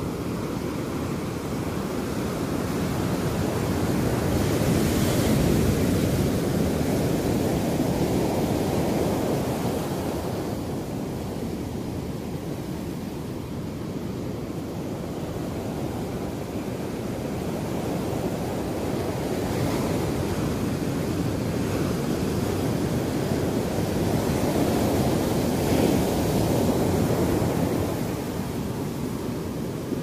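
Ocean surf breaking and washing up a beach: a steady rushing wash that swells and eases twice as waves break and run up the shore.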